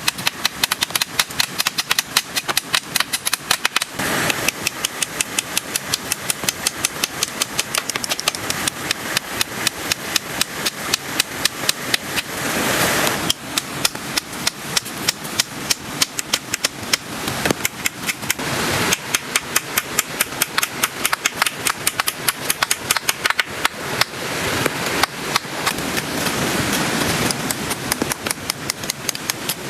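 Heavy rain on a tent or tarp, with large drops tapping sharply on the fabric about three times a second over a steady hiss of rain. The rain swells briefly a few times.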